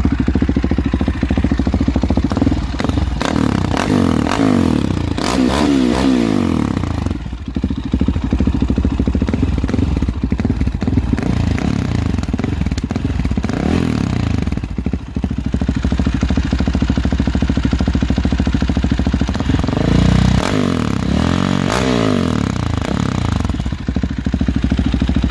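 Husqvarna 701 Supermoto's single-cylinder engine idling, with the throttle blipped so the revs rise and fall a few seconds in and again past the middle.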